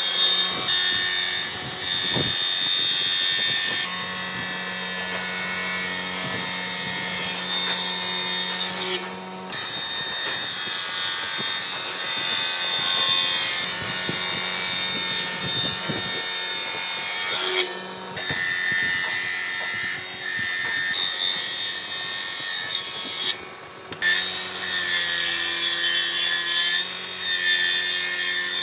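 A power tool running steadily against hardwood, cutting or abrading it, with three short breaks.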